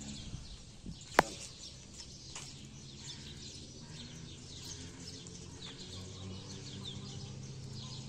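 Small birds chirping steadily in the trees, with a single sharp click about a second in and a faint steady low hum underneath.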